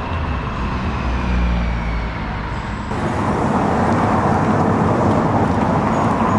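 Outdoor city ambience with road traffic running steadily. About three seconds in, the background changes abruptly to a louder, hissier noise.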